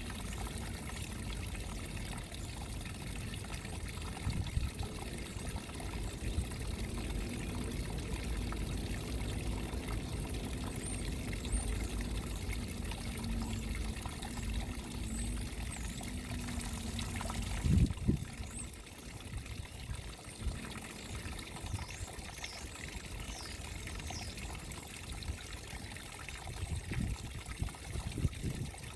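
Small garden rock waterfall: a thin stream of water trickling and splashing steadily over stone into a shallow pool, with a low rumble under it for much of the time. A single thump about two-thirds of the way through is the loudest sound.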